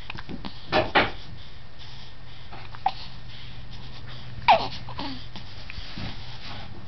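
Baby hiccupping: short, sharp hics, two in quick succession about a second in, a faint one a couple of seconds later and a louder one near the middle that trails off in a falling squeak of voice.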